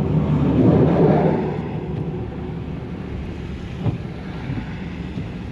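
Vehicle driving on a snowy road: steady engine and tyre hum with a louder rushing swell in the first second and a half that fades away, and a single small knock a little before the end.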